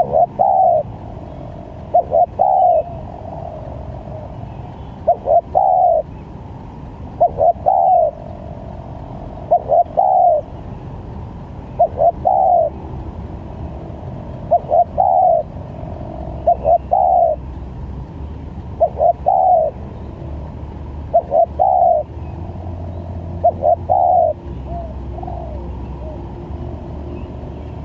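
Spotted dove cooing: a phrase of two or three short coos and a longer one, repeated about every two to two and a half seconds, stopping about three seconds before the end. A steady low rumble runs underneath.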